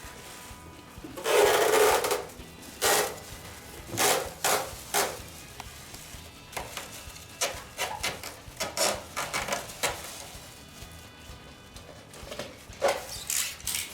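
Irregular clicks, knocks and clatter of hard plastic air-conditioner parts being handled during disassembly, with a louder rattling scrape about a second and a half in.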